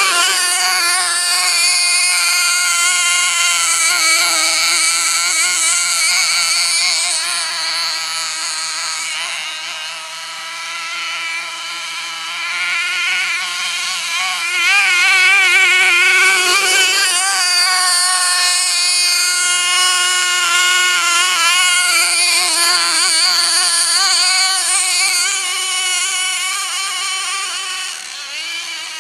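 Small nitro engine of a 1:8 Kyosho MTA-4 Sledge Hammer RC monster truck running at a high, buzzing pitch and revving up and down with the throttle. It drops quieter about ten seconds in and comes back louder around fifteen seconds.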